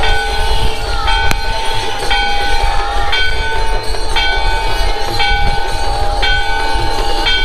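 Temple bell rung repeatedly, struck about once a second, each stroke ringing on in several steady tones, over a steady low rumble.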